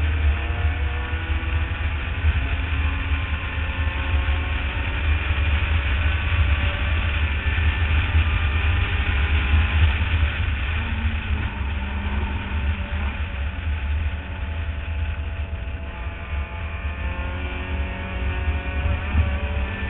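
Mazda Miata race car's four-cylinder engine running hard at racing speed, its note rising and falling through acceleration, braking and gear changes, under a heavy low rumble of wind over the roof-mounted camera.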